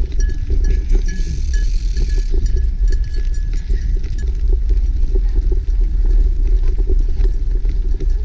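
Steady wind rumble on the microphone during a bike ride on a gravel trail, with a rapid crackle that fits tyres rolling over gravel.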